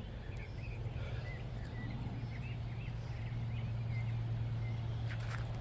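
Birds chirping, with many short calls scattered throughout, over a steady low hum.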